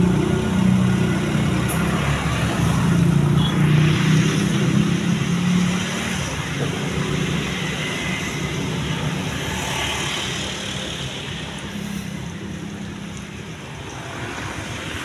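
Road traffic noise, with a motor vehicle's engine humming steadily for the first six seconds or so and then fading away.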